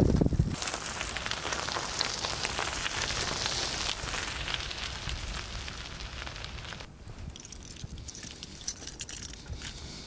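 Bicycle tyres crunching and crackling over a gravel path. About seven seconds in, a bunch of keys hanging from a bicycle handlebar jangles lightly.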